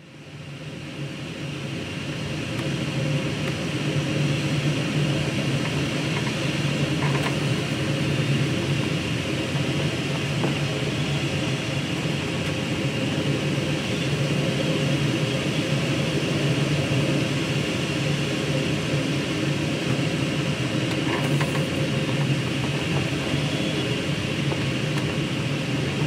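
Steady rush of air over the canopy inside the cockpit of an ASK-21 two-seat glider in flight, with a low hum under the hiss. It builds up over the first few seconds and then holds even.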